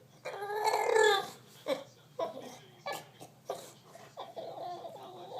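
Bulldog making a drawn-out, wavering whine-like vocal noise, then a run of short separate bursts and a softer pitched call near the end.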